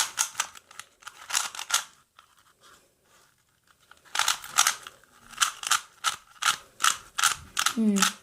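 Faces of a brand-new, out-of-the-box original Rubik's Cube being turned by hand: a run of plastic clicks and clacks, a pause of about two seconds, then quicker turns at about two a second. The turning is stiff: the cube is very tight and not yet broken in.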